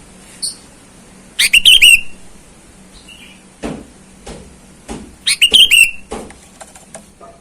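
Sooty-headed bulbul (kutilang) calling: two loud bursts of quick, bubbly, falling chirps about four seconds apart. Several fainter short knocks fall between and after them.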